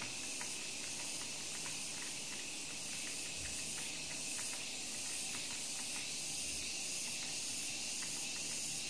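Steady hiss of a recording microphone's background noise, with faint scattered clicks.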